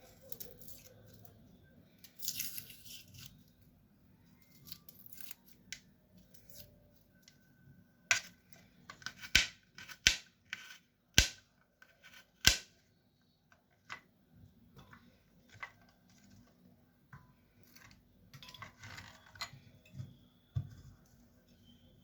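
Garlic being peeled by hand: the dry, papery skins rustle and tear. There are a few sharp clicks, and the loudest are five close together in the middle.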